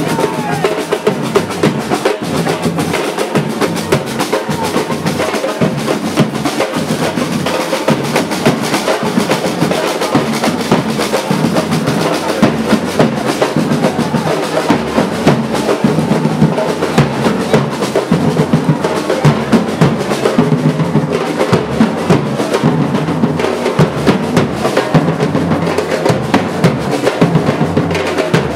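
Drums played together in a loud, continuous drumming rhythm.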